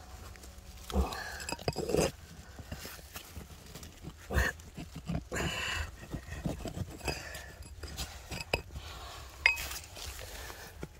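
Irregular scraping and knocking of stones and earth being worked loose by hand while digging out a stone pile, with a few louder knocks.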